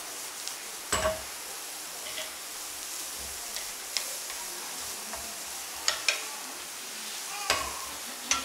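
Carrots and peppers sizzling as they sauté in a frying pan, stirred with a wooden spatula. There are a handful of sharp knocks as the spatula and pan strike, the loudest about a second in and again near the end.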